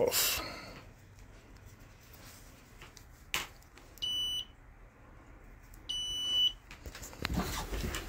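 UEI DL389B clamp meter's continuity beeper sounding twice, two short high beeps about two seconds apart, the second a little longer: the test leads are making contact, showing continuity. A single sharp click comes just before the first beep.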